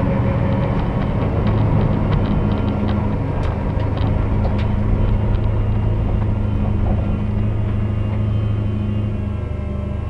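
Toyota 1UZ-FE V8 heard from inside the car's cabin, running at low revs with a steady deep drone as the car creeps along, with light ticks and rattles over it. The engine note settles a little lower near the end as the car comes to a stop.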